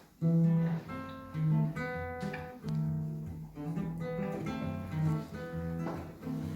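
Acoustic guitar playing an introduction, strumming and picking chords that ring one after another.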